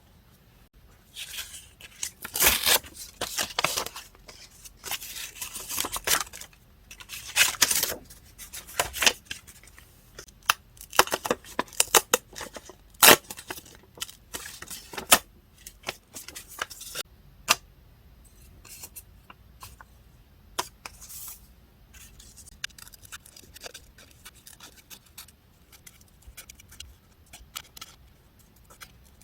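Scissors snipping paper and paper being torn, close up, in irregular clusters of crisp strokes and sharp snips that thin out after about the middle.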